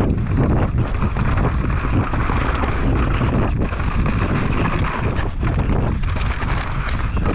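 Wind rushing over the microphone of a camera on a mountain bike riding fast downhill, with the tyres rolling over dirt and loose rocks and many short knocks and clatters from the bike over the rough ground.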